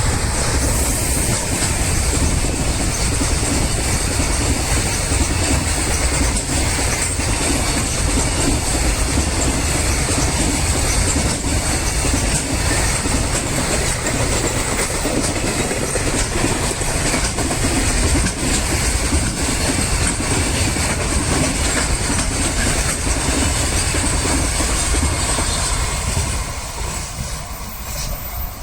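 Electric train on the Tokaido Main Line passing over a level crossing, wheels clattering over the rail joints in a loud, steady rush for most of half a minute. The sound eases off near the end as the train clears.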